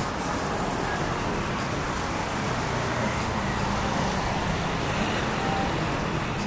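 Steady city road traffic: cars going by on the street, making a continuous hum with no single event standing out.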